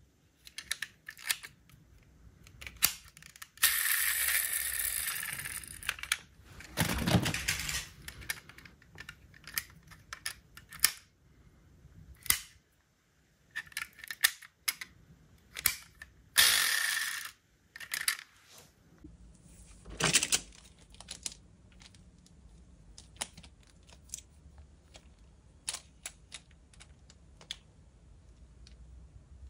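Die-cast metal toy cars being handled: scattered sharp clicks and taps as doors and parts open and snap shut, with small metal-and-plastic rattles and a few longer scraping sounds.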